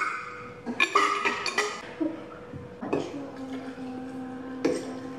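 Clinks and knocks of a stainless-steel thermos flask and a glass being handled, then matcha poured from a glass jug into the flask.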